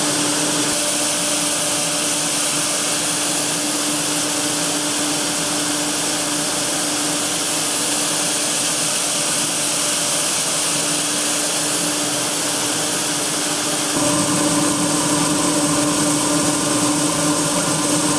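Grain-handling machinery running steadily: a constant hum under a hiss of moving grain. About fourteen seconds in, a deeper rumble joins.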